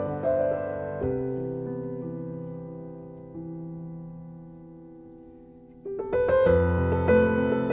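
Slow, relaxing piano music: held notes die away gradually over several seconds, then a louder passage begins about six seconds in.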